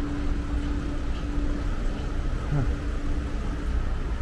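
City street traffic: a line of cars and a city bus idling and crawling alongside, a steady low rumble with a droning engine hum.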